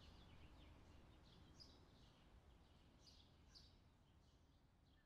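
Faint birdsong: scattered short chirps over a low, steady background hum, slowly fading out.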